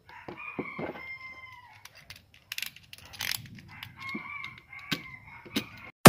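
A rooster crowing twice, about a second in and again about four seconds in, over light clicks and scrapes of hard PVC plastic being handled and trimmed with a utility knife.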